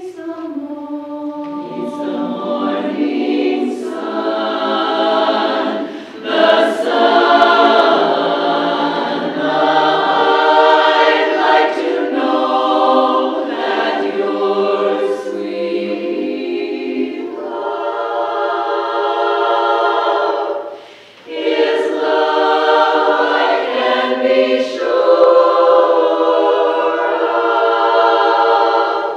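Women's barbershop chorus singing a cappella in close harmony, the full ensemble coming in together just after a brief silence, with a short breath break about two-thirds of the way through.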